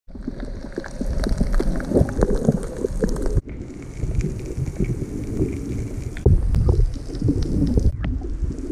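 Water heard underwater through a camera's waterproof housing: a muffled, low rushing and sloshing of moving water with scattered crackles and clicks. The sound changes abruptly twice, at cuts between shots.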